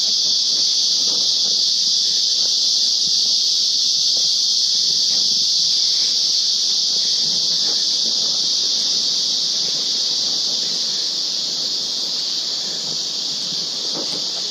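A steady, high-pitched drone of insects calling together in the forest. Faint footsteps on the trail sound now and then underneath it.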